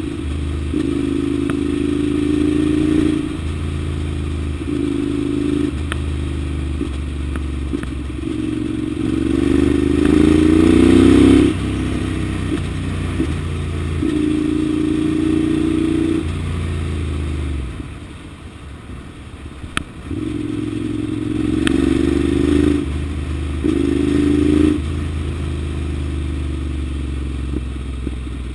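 Ducati Monster 795's air-cooled L-twin engine on the move: the revs climb and fall back in steps as it pulls through the gears. It eases off to a quieter lull about eighteen seconds in, then picks up again.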